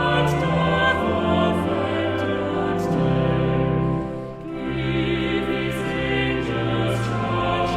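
Choir singing a slow hymn in long, held notes, with a short break between phrases about four seconds in.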